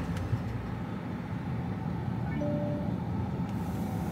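HGV lorry's diesel engine running steadily, heard from inside the cab as the truck drives round a roundabout. There is a click just after the start and a short beep about two and a half seconds in.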